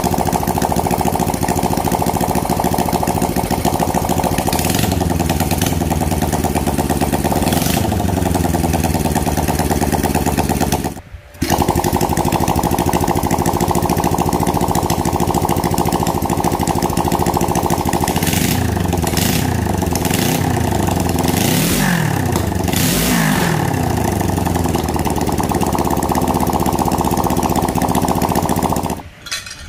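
Home-built two-cylinder engine converted from a single-cylinder Honda motorcycle engine, running on its stand with twin carburettors and no exhaust pipe fitted. It is revved up and down several times and stops near the end, with a brief break just after the middle.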